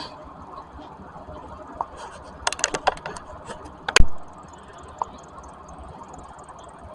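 Metal hand tools clicking and clinking on bolts and brackets while a new transmission engine mount is fastened in, with a quick run of clicks and then one sharp metallic knock about four seconds in.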